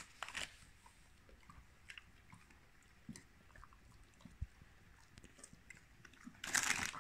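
A Staffordshire bull terrier chewing a dental chew treat: scattered small clicks and crunches of its teeth, with a louder burst of about half a second near the end.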